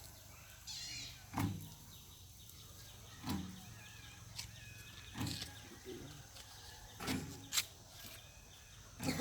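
A series of knocks, roughly one every two seconds, with two close together about seven seconds in, over a steady low hum. A brief high squeak comes just before the first knock.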